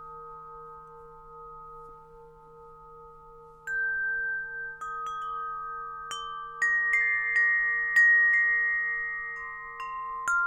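Tuned metal wind chimes (Gregorian Alto chimes) sound over a low, steady, wavering drone from a Tibetan singing bowl. For the first few seconds only the fading ring and the drone are heard. Then the chimes are struck in a loose, unhurried run of about a dozen notes, each ringing on long.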